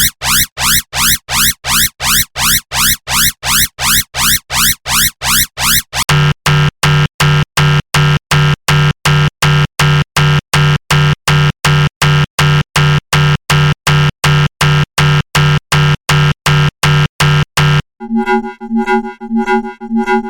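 Synthesized science-fiction alarm sounds played one after another: first a fast pulsing alarm whose beeps each sweep upward, about four a second; about six seconds in it switches to a harsher buzzing alarm pulsing a little slower. Near the end a third, quieter pulsing alarm tone takes over.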